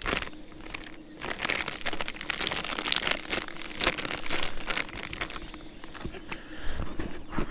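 Dry groundbait pouring from a crinkling plastic packet into a fabric bucket, the packet rustling and crumpling as it is shaken out.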